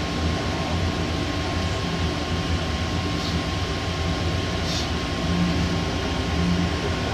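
Denver airport's rubber-tyred automated people-mover train running through its tunnel, heard from inside the car: a steady low rumble with a thin, steady whine above it.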